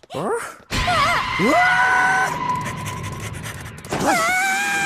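Cartoon voice acting: high-pitched screams. One rises sharply and is held for about a second, starting soon after a loud sudden noise. Another held shriek comes near the end.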